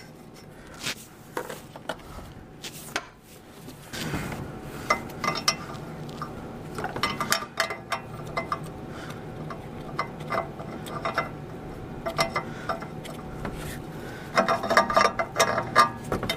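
Adjustable wrench and oxygen sensor clicking and clinking against the exhaust header as the new sensor is threaded in and tightened: scattered small metallic clicks, with a dense flurry of them near the end.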